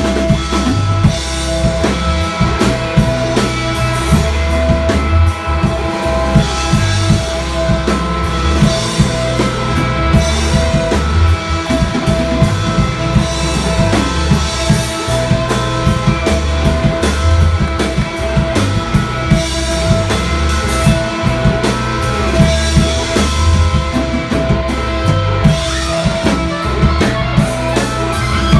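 Rock band playing live: drum kit and guitar with a heavy low end, loud and steady throughout.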